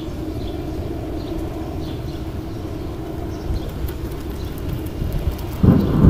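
Mountain stream rushing steadily, with faint short high chirps repeating over it. Near the end a gust of wind buffets the microphone with a sudden low rumble.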